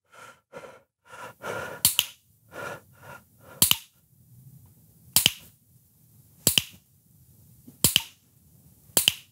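A series of six sharp snaps or clicks, about one every second and a half, after a few soft breathy sounds in the first three seconds.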